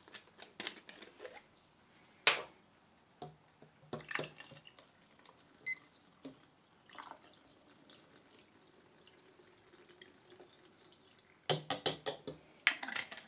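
Stabilizer being poured from a plastic bottle into a film developing tank: a faint trickle of liquid among scattered clicks and knocks of bottle and tank, with a quick run of clicks near the end as a cap is put back on.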